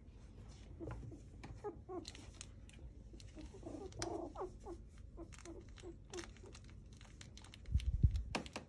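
Two-week-old doodle puppies squeaking and whimpering in short, high little cries, two or three a second, with faint ticking of paws on the mat. A dull low rumble near the end is the loudest moment.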